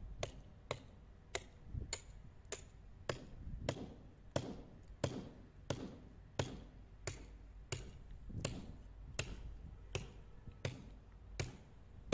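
Hammer blows on a steel frame bar, in a steady rhythm of about three strikes every two seconds.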